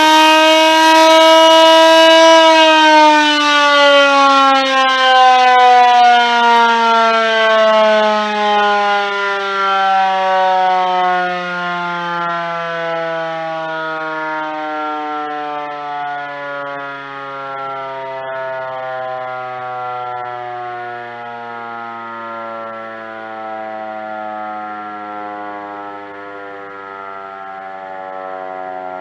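Elektror S2a siren spun up by an electric drill on its rotor shaft, wailing at a steady pitch for about two seconds. It then winds down in one long, slowly falling wail as the rotor coasts to a stop, fading as it drops.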